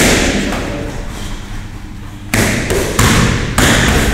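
Boxing gloves smacking focus mitts during pad work: one punch at the start, then a quick combination of four punches about two and a half seconds in, each smack with a short echo.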